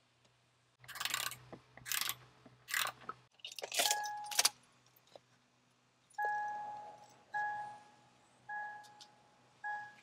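A Toyota 4Runner's warning chime dinging four times, evenly a little over a second apart, each ding a single clear tone that fades, as the vehicle is switched on. Before it, a few seconds of rattling and jangling handling noise, like keys.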